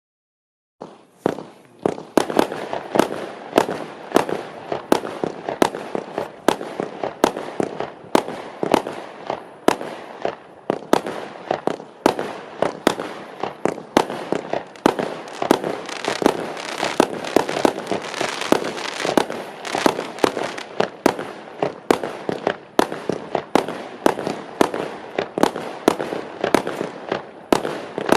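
Multi-shot consumer firework cake firing: a rapid, unbroken string of sharp bangs with crackling between them, starting just under a second in.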